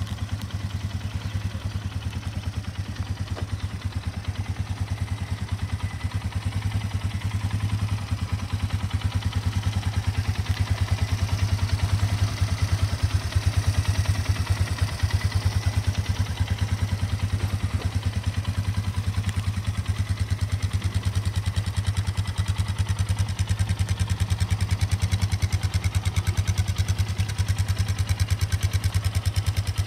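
2002 Polaris Sportsman 500 H.O. ATV's single-cylinder four-stroke engine idling steadily with an even, rapid chug.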